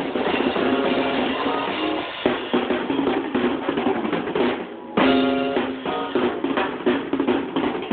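Drum kit played in a fast run of rapid strikes on snare and bass drum, with a loud accented hit about five seconds in and pitched music sounding with it.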